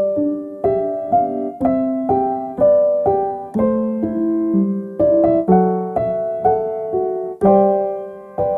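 Calm piano music: single notes and chords struck roughly twice a second, each left to ring and fade.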